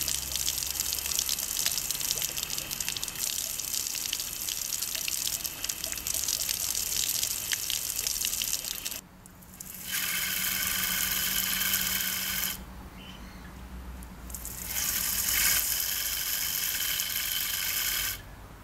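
Water jetting from a garden hose through a small handheld water turbine, a loud steady hiss of spray. The flow cuts out about nine seconds in, then comes back in two bursts with a high whirr of the spinning turbine mixed in, stopping again near the end.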